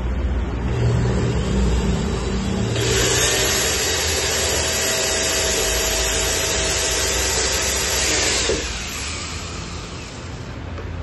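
Corded electric hand drill running and boring a hole into a polygranite wall sheet, with a steady motor tone. A harsher cutting noise joins it about three seconds in, and the drilling stops about eight and a half seconds in.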